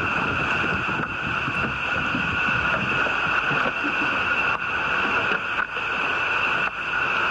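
Wind on the microphone and water moving against a small inflatable boat, over a steady drone, with a few light knocks a little past the middle and near the end.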